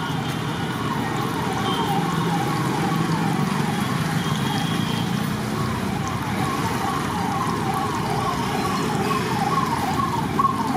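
Batter balls deep-frying in a large kadai of hot oil, a steady sizzle. Over it, a siren wails in quick, repeated falling sweeps, a few each second.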